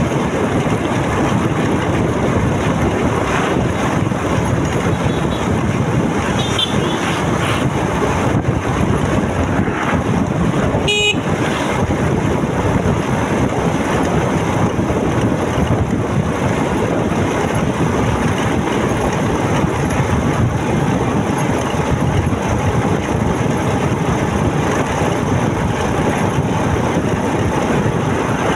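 Steady rush of wind and road noise from a motorcycle under way, with a short vehicle horn toot about eleven seconds in.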